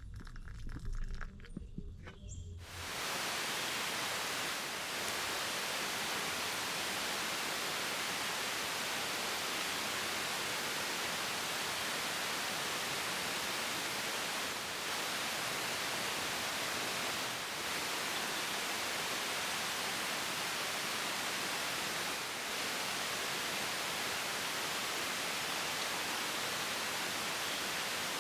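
A few soft knocks, then a steady, even rushing hiss that starts suddenly about three seconds in and holds.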